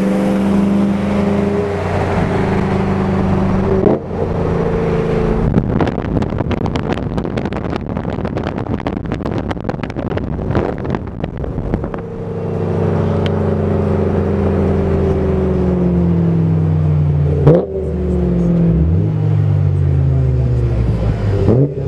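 Car engines accelerating hard through the gears: the engine note climbs, drops at each shift and climbs again. In the middle there is a rough, clattery stretch.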